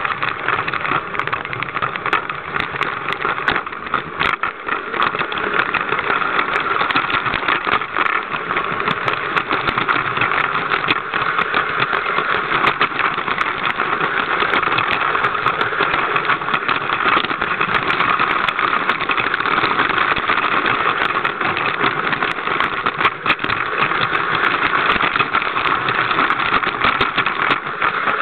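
Lego train's small electric motor and gears whirring steadily as the train runs along plastic track, with wheels rattling and many small clicks over the rails.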